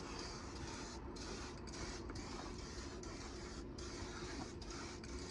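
Aerosol spray paint cans hissing in long sprays, with brief breaks where the nozzle is let go several times, over a steady low hum.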